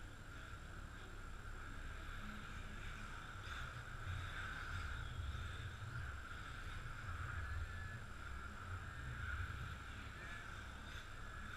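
Radio-controlled touring cars lapping a track: a faint, steady motor and tyre noise that swells and fades as the cars pass, over a low rumble.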